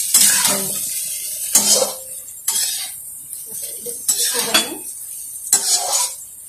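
Metal ladle stirring and scraping in a metal kadhai, knocking against the pan about once a second, over a light sizzle of frying vegetables and roti pieces that fades after the first couple of seconds.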